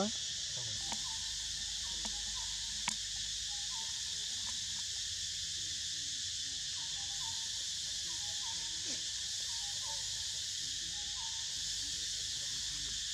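Steady high-pitched drone of forest insects, with faint short chirping notes scattered through it. A brief rising squeak comes right at the start, and a single sharp click about three seconds in.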